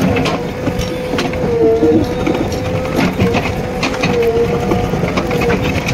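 JCB 3DX backhoe loader working under load, its engine and hydraulics giving a steady whine that dips slightly in pitch a few times. Its bucket digs and scrapes through soil and roots around a tree stump, with frequent irregular knocks and cracks.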